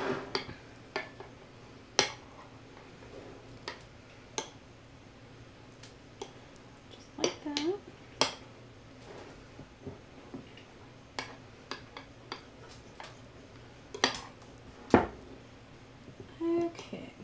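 A knife spreading tomato paste over meatloaf in a glass loaf pan, its blade clicking and tapping against the glass now and then, with quiet scraping in between.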